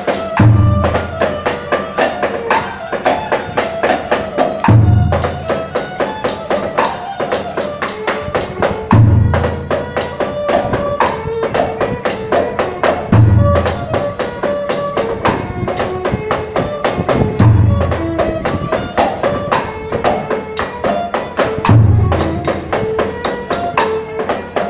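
Vietnamese traditional ceremonial music: a melodic line over rapid woody percussion clicks, with one deep drum stroke about every four seconds.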